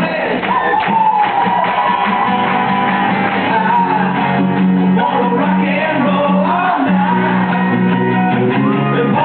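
Live band playing, with a voice singing over strummed guitars.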